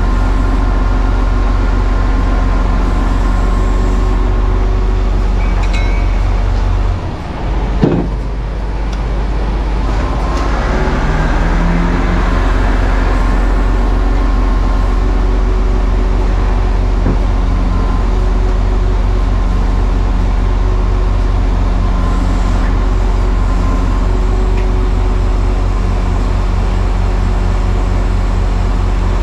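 Lorry's diesel engine running steadily to drive the hydraulics of a truck-mounted loading crane that is being worked by radio remote. The hum dips briefly with a sharp clunk about eight seconds in, and a short rising whine follows a few seconds later.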